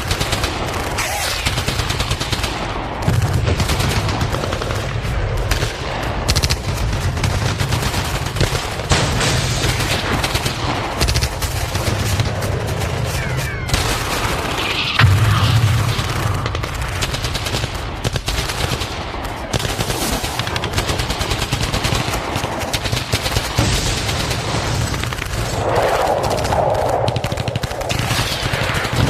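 Battlefield sound effect: dense, continuous gunfire with rapid machine-gun fire over a steady low rumble, and a louder bang about halfway through.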